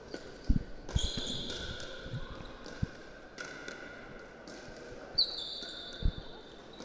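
Pickleball dink rally: a few hard knocks of paddle and ball, seconds apart, with short high squeaks of court shoes on the hall floor.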